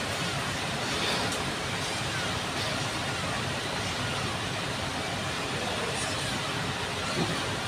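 Steady urban traffic noise: an even rumble and hiss with no single clear source standing out.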